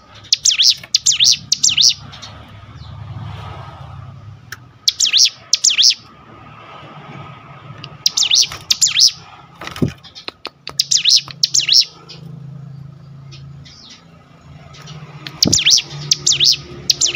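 Ciblek gunung (a prinia) singing in full song: five bursts of rapid, high, sweeping chirps, each about a second long, with short pauses between. Two sharp knocks come through, one about ten seconds in and one near the end.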